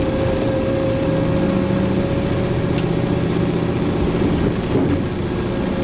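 1969 Camaro Z/28's 302 V8 running steadily as the car is driven along at an even pace.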